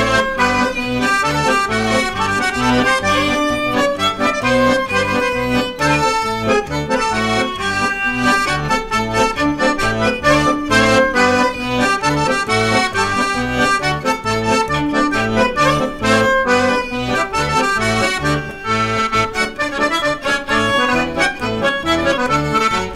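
Chromatic button accordion and violin playing a traditional polka together, the accordion leading over a steady bass-and-chord beat of about two beats a second.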